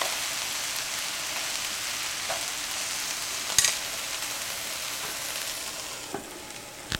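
Thinly sliced onions sizzling in olive oil in a frying pan as they caramelize, stirred with a utensil. A sharp clack comes about halfway through, and two lighter knocks near the end, as the sizzle eases slightly.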